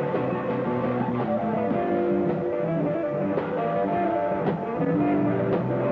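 Blues harmonica blown into the vocal microphone, playing held and bending notes over a live band with guitar.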